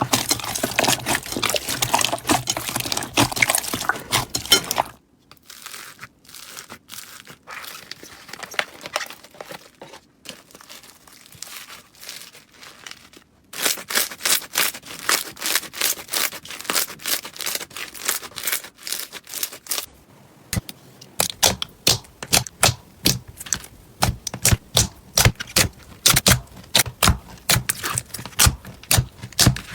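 Slime being squeezed and worked by hand, making rapid crackling, clicking pops. The sound changes abruptly several times and is quieter for a stretch about five to thirteen seconds in.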